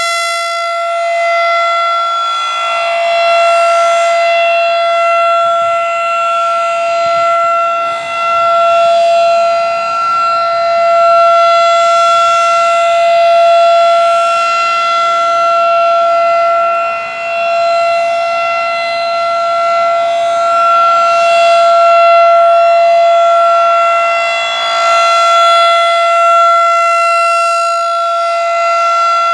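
Federal Signal 2001-SRNB rotating outdoor warning siren sounding a steady tone for a test. The pitch holds level while the sound swells and fades about every eight seconds as the rotating head sweeps past.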